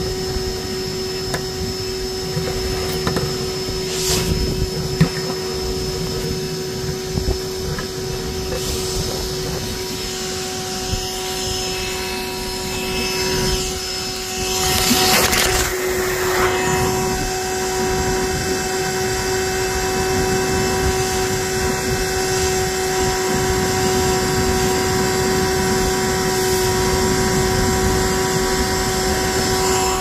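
All My Bees bee vacuum running with a steady hum, drawing bees out of a cavity through its corrugated hose. Around the middle, a louder rush of air for a few seconds.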